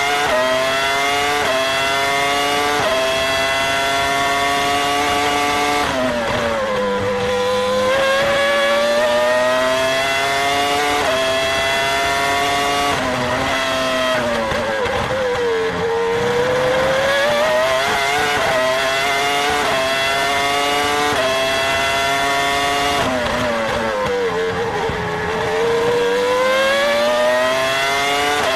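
Onboard sound of a 2003 Minardi Formula One car's Cosworth V10 at full race pace: a high-pitched scream that climbs through the gears, dipping slightly at each quick upshift. Three times it falls away under braking with downshifts, then climbs again as the car accelerates out of the corner.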